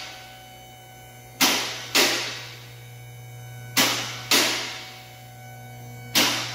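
Two-post car lift raising a car: the electric-hydraulic power unit hums steadily while the safety locks on the two columns clank in pairs about half a second apart, ringing in the steel. The pairs repeat every couple of seconds as the carriages climb past each lock position.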